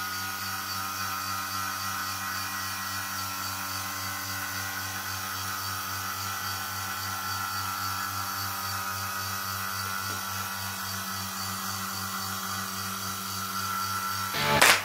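Electric vacuum pump running steadily with a constant hum and hiss, drawing vacuum through a hose on a vacuum-bagged composite laminate. Guitar music comes in right at the end.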